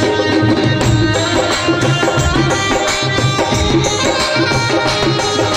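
Live devotional bhajan music played over a PA system: a steady hand-drum rhythm under sustained melodic accompaniment.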